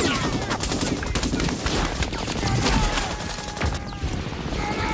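Heavy battle gunfire: a dense, rapid crackle of machine-gun and rifle shots, many a second, without a break.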